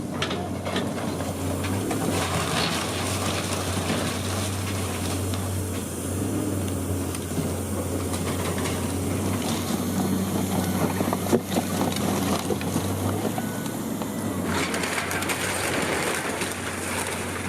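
Heavy demolition machine's diesel engine running steadily while building debris crunches and clatters, with one sharp crack about eleven seconds in.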